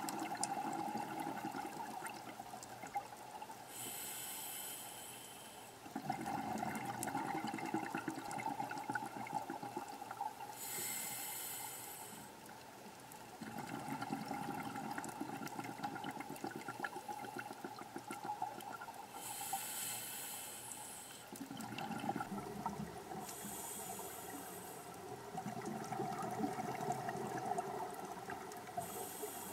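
A scuba diver breathing through a regulator underwater: short hissing inhalations alternate with longer rumbling gurgles of exhaled bubbles, in a slow cycle about every eight seconds.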